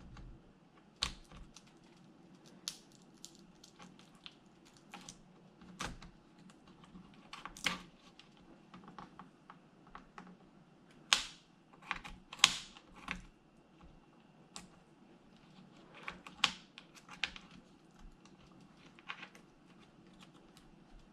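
Irregular clicks, taps and short scrapes of a small tool against the plastic and parts inside an opened Lenovo T530 laptop, as the taped-down CMOS battery is worked loose.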